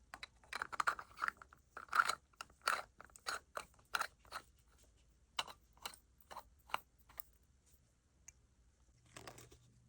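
Crinkling and crackling of plastic gacha capsule packaging being handled and opened, in quick irregular bursts that thin out after about five seconds.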